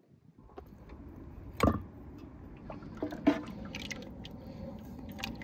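A ladle moving through boiled meat and broth in a large pot: liquid sloshing and dripping, with one sharp knock about a second and a half in and a few smaller clicks after.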